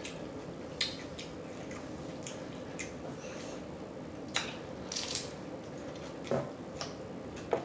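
A person chewing a taco with open-mouthed smacking: short wet mouth clicks and smacks, scattered at about one a second.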